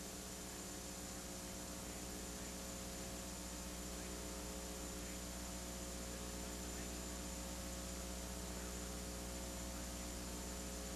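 Steady electrical hum over a faint even hiss, unchanging throughout, with no other sound.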